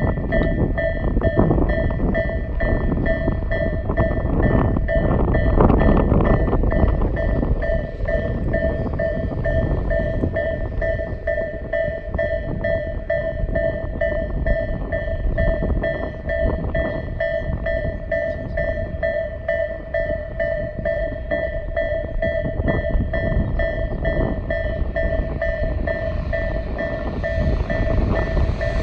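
Japanese railway level-crossing warning bell with the electronic Isesaki-type tone, ringing steadily. A train's approach rises beneath it near the end.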